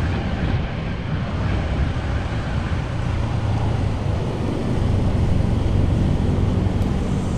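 Steady low rumble of a motorcycle ride with wind buffeting, heard muffled through the camera's built-in microphone.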